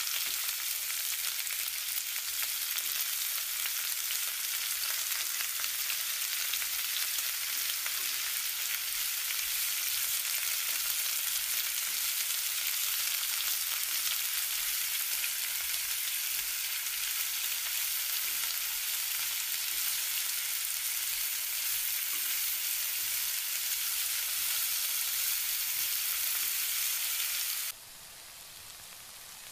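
Onions and ground spices frying in oil in a steel wok, a steady high sizzle. Near the end the sizzle suddenly drops much quieter.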